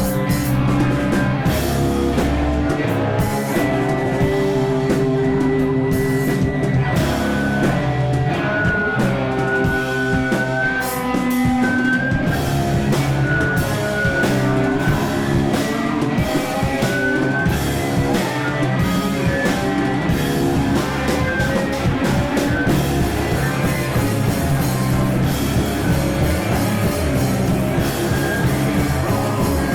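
A rock band playing live, guitar and drum kit at a steady loud level, with a high melodic line coming in over the band about a third of the way through.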